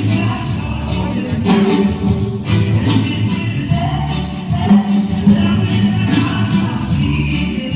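Music played loud through a party sound system during a sound check, with heavy bass and a steady beat.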